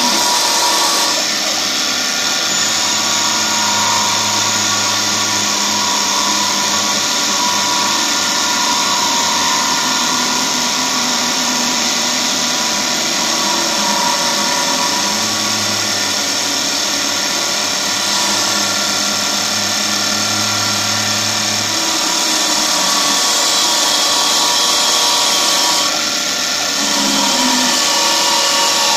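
CNC bead-making wood lathe running, its spindle turning a wooden gourd while a collet-held cutter shapes it. It gives a steady, loud machine whine with several high tones and cutting noise, dipping briefly near the end.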